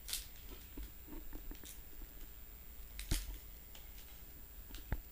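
Faint handling of a small chip packet being unboxed: a few sharp clicks, one at the start, one about three seconds in and one near the end, with soft rustling between.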